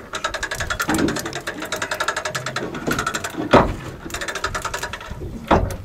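Longline reel's ratchet clicking rapidly and evenly as the line is wound in during hauling, with two louder knocks about three and a half seconds in and near the end.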